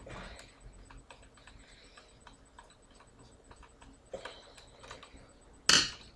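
Screwdriver turning out the fan screw in a Buffalo LinkStation Live's plastic case: a run of faint light clicks and ticks, with one louder short knock near the end.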